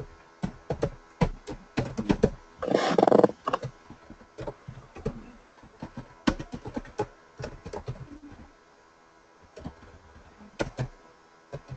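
Computer keyboard typing and mouse clicks, an irregular run of sharp clicks. A short, louder noisy burst comes about three seconds in.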